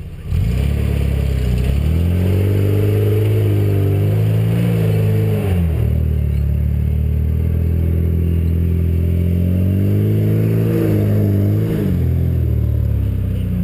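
Toyota pickup 4x4's engine revving under load as it climbs a steep grassy slope. The pitch rises, falls away about five and a half seconds in, climbs again, and eases off near the end.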